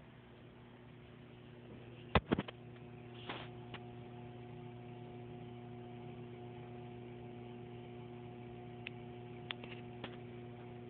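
Steady electrical hum of small-aquarium equipment running, with a few sharp clicks and knocks, the loudest a pair about two seconds in and a few smaller ones near the end.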